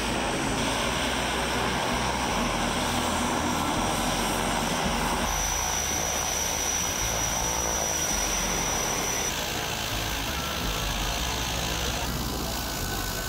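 Steady engine drone mixed with a rushing noise, its tone shifting abruptly a few times.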